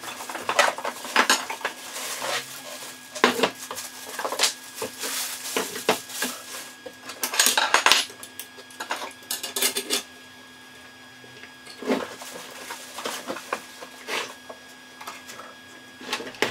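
A circular saw and its parts being unpacked from a cardboard box and handled on a wooden workbench: irregular clattering knocks and rustling of packaging. The knocks come in bunches, loudest about seven to eight seconds in, with a quieter spell around ten to twelve seconds.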